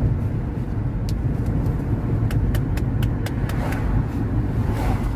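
Car cabin noise while driving on the road: a steady low rumble of tyres and engine, with a scatter of light sharp ticks in the middle.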